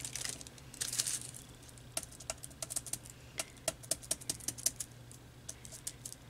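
Hands pressing and smoothing tissue paper flat onto a paper craft tag: a scatter of small taps and clicks, with a brief rustle of the tissue paper about a second in.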